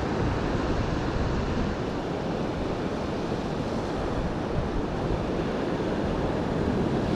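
Surf breaking and washing steadily on a sandy beach, with wind rumbling on the microphone.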